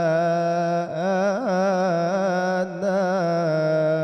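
A male munshid singing an Islamic devotional inshad bidding farewell to Ramadan. He holds long notes with wavering melismatic ornaments, with short breaths about a second in and near three seconds.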